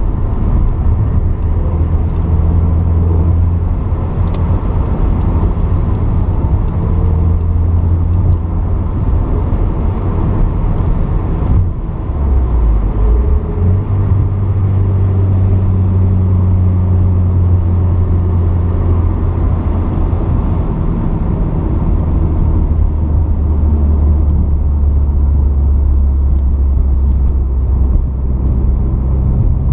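A 1981 Porsche 944's 2.5-litre four-cylinder engine running steadily under way. About twelve seconds in the engine note dips briefly, then picks up again.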